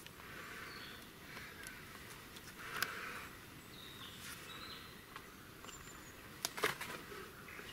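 Faint forest ambience with a few short, high bird chirps, and rustling handling noise from a silicone mask being pulled off, with a cluster of sharp clicks about six and a half seconds in.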